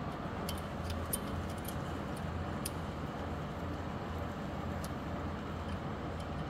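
Steady low machine hum with an uneven pulsing drone, and a few light metallic clicks as the lathe's tailstock handwheel is turned by hand.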